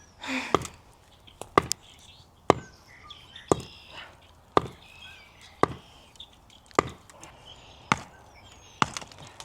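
Repeated sharp strikes of a hand tool on a buried concrete post footing, about one blow a second, trying to break the concrete up.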